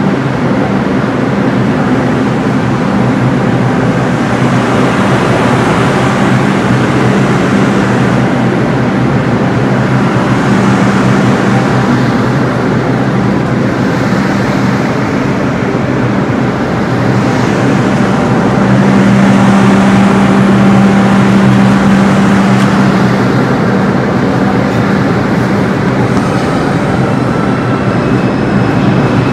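New York IRT subway train in an underground station, making a loud, continuous rumble with a steady hum that swells for a few seconds past the middle.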